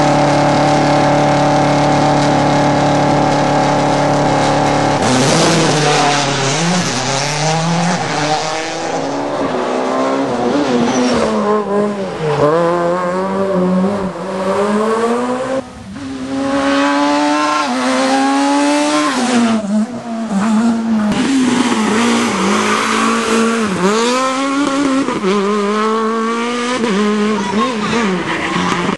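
Rally car engines at high revs: for about the first five seconds one engine is held at a steady high rev, then cars rev hard through corners, the engine note climbing and dropping again and again with throttle and gear changes.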